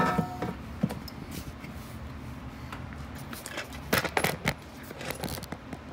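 Plastic windshield washer reservoir being handled and worked down out of the wheel well: light clicks and hollow plastic knocks against the surrounding parts, with a cluster of them about four seconds in, over a low steady hum.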